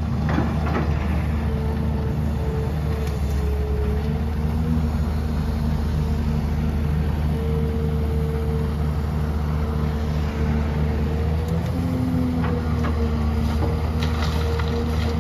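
XCMG XE265CT excavator's diesel engine running steadily, with a whine that wavers slightly in pitch, and a few short knocks and scrapes about a second in and again near the end.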